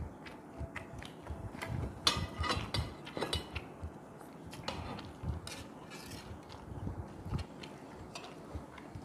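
Metal spoon and ceramic dishes clinking and scraping as a bowl of fish head soup is pulled closer and the fish head picked at with the spoon. Scattered small clicks, with a cluster of louder scrapes about two to three and a half seconds in.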